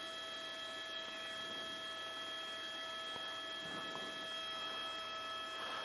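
Faint, steady electrical hum: several constant whining tones over a low hiss.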